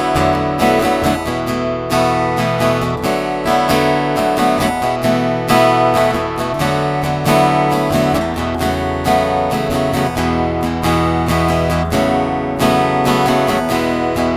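Background music: acoustic guitar strumming steadily, with no singing.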